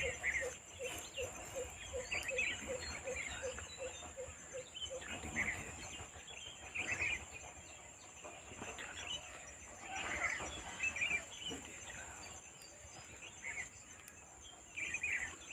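Several birds chirping in short scattered bursts over a steady high-pitched insect drone. For the first five seconds a low note repeats about three times a second.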